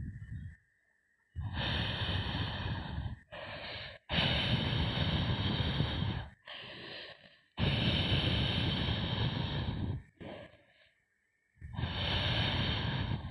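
Heavy, rasping animal breaths, a long breath and a shorter one in turn, with short pauses between them.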